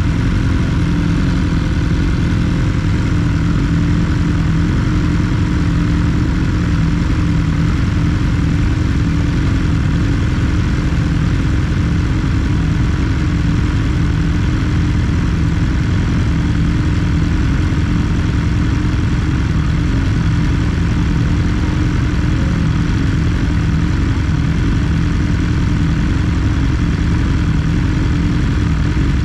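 2022 BMW S 1000 R's inline-four engine running at a steady pitch, with no revving or gear changes.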